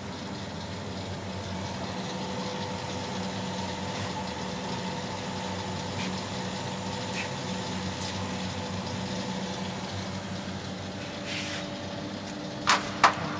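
Electric dumpling-skin and chapati sheeting machine running, a steady motor hum with held tones as its conveyor belt and rollers turn. Near the end come two sharp knocks.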